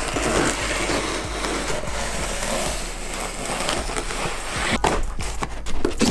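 Folding knife blade slicing through packing tape on a cardboard box: a steady tearing, scraping noise for about four seconds, then a few sharp clicks and knocks near the end as the tape at the box's end is cut.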